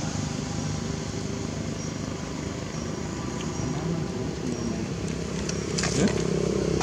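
Steady low hum of a motor vehicle engine running, with a few sharp clicks near the end.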